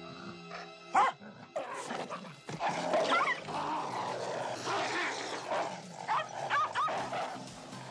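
A dog barking and yelping, with rough noisy sounds between the cries; the loudest, sharpest cry comes about a second in.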